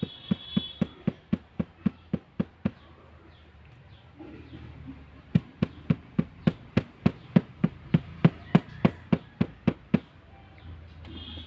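Glass jar of freshly poured rosella jelly knocked repeatedly against a cloth-covered table, to bring trapped air bubbles up and out of the jelly. Sharp knocks come about four a second in two runs, with a pause of a couple of seconds between them.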